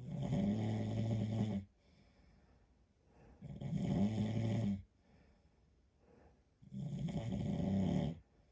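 A man snoring: three low snores, each about a second and a half long, coming about every three seconds.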